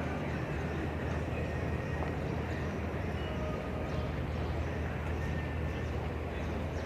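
Steady low rumble of outdoor city background noise, such as distant traffic, with a few faint brief high tones over it.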